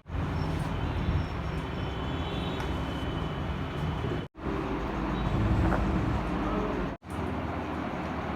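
Steady rumbling background noise, like traffic, broken by two abrupt cuts to silence.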